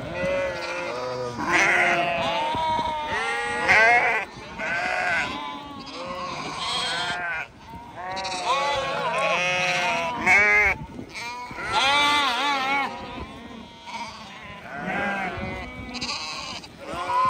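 A flock of sheep bleating, many calls overlapping without a break, some higher and some lower, with a few louder calls standing out.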